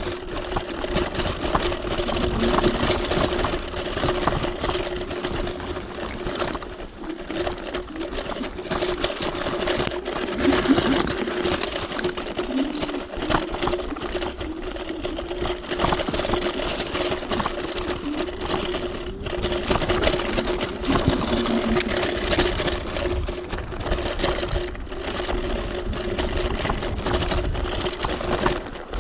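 TRBK-M2 electric hyperscooter ridden off-road: the motors whine at a fairly steady pitch under a dense wash of tyre and ground noise. Frequent knocks and rattles come from riding over rough terrain.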